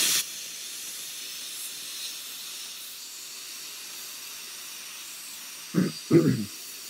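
Handheld garment steamer hissing steadily as its nozzle blows steam onto crushed foam of an RC plane wing, heating the compressed foam so small creases re-expand. The steam starts with a sudden louder burst, and two short lower sounds come through near the end.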